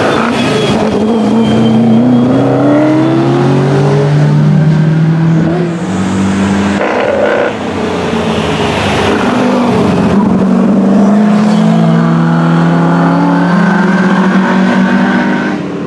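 TVR Griffith 200 race car's tuned Ford 289 V8 run hard up a hillclimb, its note rising through a gear over the first few seconds, then rising again in a second pull later on. A second racing car runs close behind.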